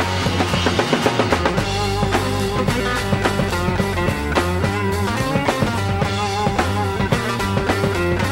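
Loud psychedelic hard rock from a power trio: an electric guitar playing wavering lead lines over electric bass guitar and a busy drum kit, with no singing.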